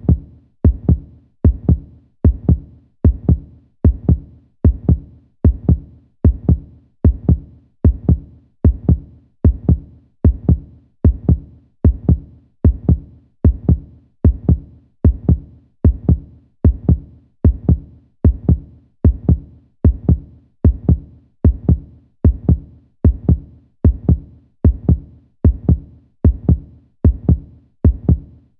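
Heartbeat: a steady rhythm of deep, low thumps, a little under two beats a second, each with a short click on top.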